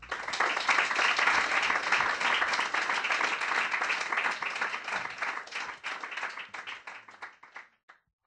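Audience applause, a dense crackle of many hands clapping that starts suddenly and dies away near the end.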